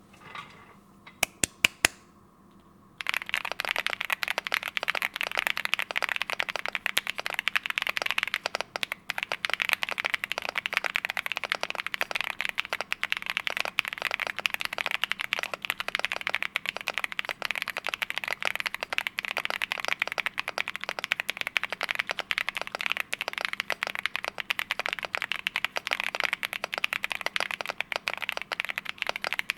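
Typing on a mechanical keyboard with stock Gateron Jupiter Banana tactile switches, in an HJS AL65 board with an FR4 plate and PBT keycaps. A handful of single keystrokes come about a second in, then fast, continuous typing starts about three seconds in.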